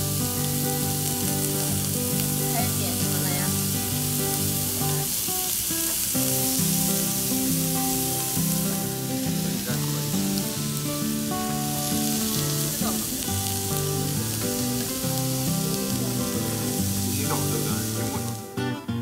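Beef sizzling on a tabletop Korean barbecue grill, a steady hiss, with background music of plucked notes over it. The sizzling cuts off just before the end.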